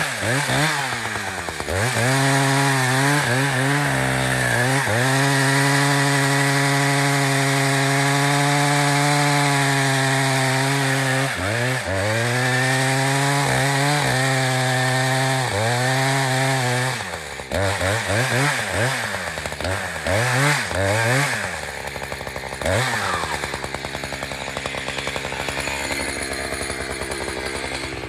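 Chainsaw cutting into a spruce trunk at high revs, its engine pitch sagging under load and recovering several times. From about 17 seconds in the throttle is blipped up and down a few times, and it drops to a lower idle for the last several seconds.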